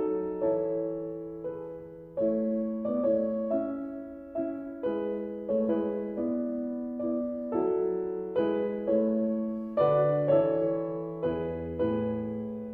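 Background music: a piano or electric piano playing a gentle melody, notes struck about every half second and fading between them.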